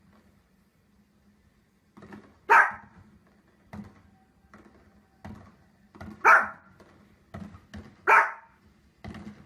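A dog barking: three loud single barks a few seconds apart, with fainter short barks or sounds in between.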